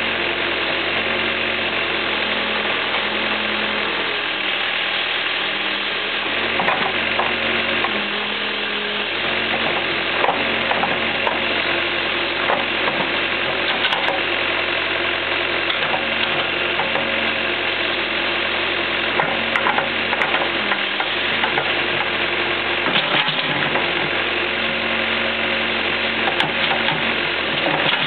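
A 1980 Case 580C backhoe's engine running steadily while the boom and bucket are worked hydraulically. A few sharp knocks come from the digging gear.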